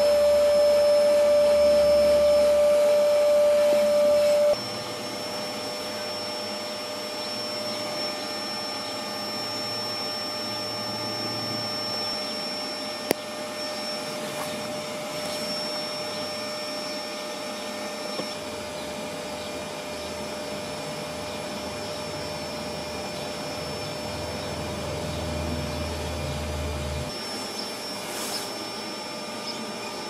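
Bee vacuum's motor running steadily with a steady whine while its hose sucks honey bees off a swarm cluster. The sound drops abruptly to a quieter, steady level about four and a half seconds in, and there is one sharp click about halfway through.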